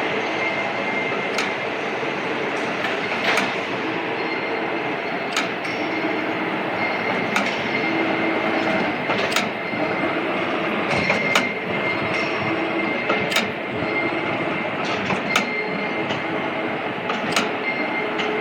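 Machine-shop machinery running steadily, with a sharp click about every two seconds.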